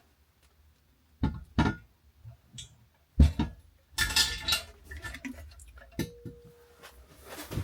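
A ceramic toilet cistern being lifted and set onto the bowl: a series of porcelain clinks and knocks, the loudest about three seconds in, with a short scraping stretch just after it.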